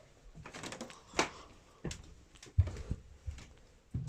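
Footsteps climbing a staircase indoors: a string of irregular knocks and thuds, the heaviest about two and a half seconds in.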